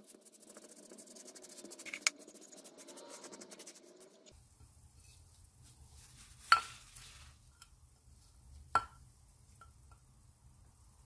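Ground spice paste being scraped off a stone grinder (ammi) into a pan: several seconds of fine scraping and rubbing that stop suddenly about four seconds in. Then a utensil clinks sharply against a dish twice, about two seconds apart.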